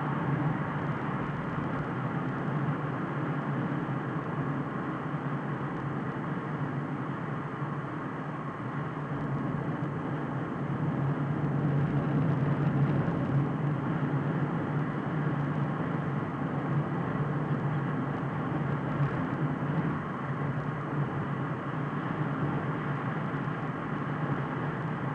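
Steady road and engine noise of a car driving at speed, heard from inside the cabin, with a low hum; it swells a little about halfway through.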